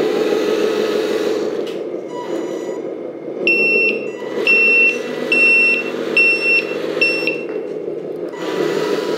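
Sound module of an RC 1/14 MAN TGS 8x8 dump truck playing a simulated diesel engine running, with the reversing warning beeper sounding five times, about one high beep a second, starting about a third of the way in: the truck is reversing.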